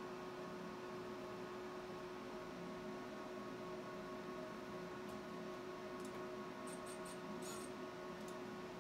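Steady electrical hum holding a few fixed pitches. Several faint, short clicks come close together near the end.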